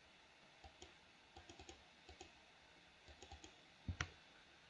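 Faint computer mouse clicks and keyboard key presses: scattered single and paired clicks, with a louder pair of clicks about four seconds in.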